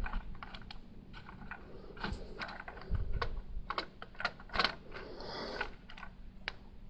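Plastic Lego pieces clicking and rattling as they are handled, in irregular sharp clicks, with a short rustle about five seconds in.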